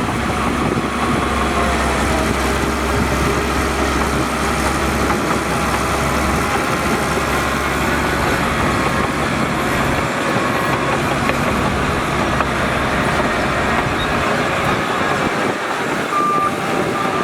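Heavy diesel earthmoving machinery, a bulldozer and dump trucks, running steadily under work. Its deep low rumble eases off partway through, and a reversing alarm starts beeping near the end.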